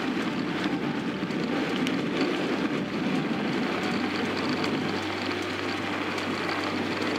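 Steady rumble of bicycle tyres rolling fast down a dirt road as the rider coasts downhill.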